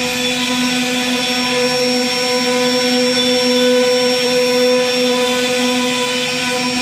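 Steady mechanical whine of a CNC router spindle running in a wood-carving shop, holding one even pitch with several higher tones above it and no break.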